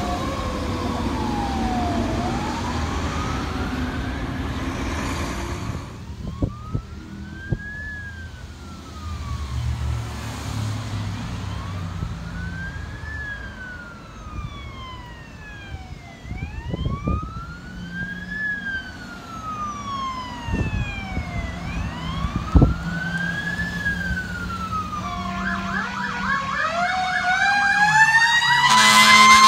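Fire engine sirens. First a loud electronic wail falls and rises. Then a more distant electronic wail sweeps up and down about every five seconds, with a few sharp low thumps. Near the end a mechanical siren winds up, rising in pitch and growing loud as the fire truck approaches.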